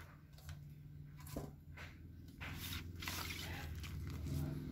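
Scratchy, crackling handling noises with several sharp clicks from work on an LCD panel and its plastic polarizing film, over a steady low hum.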